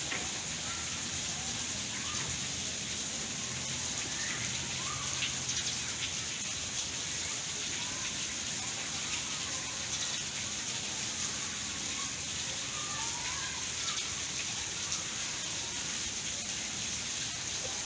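Steady rain falling with an even hiss, with faint short chirps now and then.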